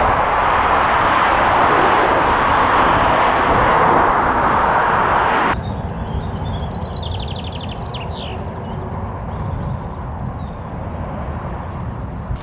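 Steady noise of traffic on a dual carriageway below. It cuts off sharply about halfway through, leaving quieter outdoor ambience with small birds singing: a rapid trill and a few scattered chirps.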